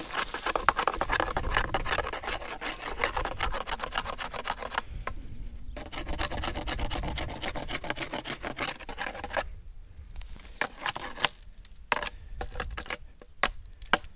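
A hand-held stone scraping rapidly along a eucalyptus branch, working it into a bow for a bow drill, in quick rasping strokes. It breaks off briefly about five seconds in, then thins to scattered scrapes and knocks near the end.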